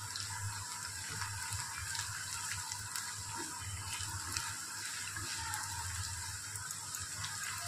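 Sliced onions sizzling in hot oil in a kadai: a steady frying hiss with scattered faint pops and clicks, over a low hum.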